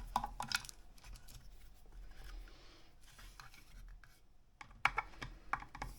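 Light clicks and rubbing from plastic parts of a router and its dust adapter being handled, with a few sharper clicks near the start and again about five seconds in.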